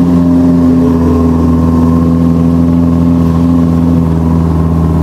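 Jeep engine running at a steady pitch while the vehicle drives, heard from on board.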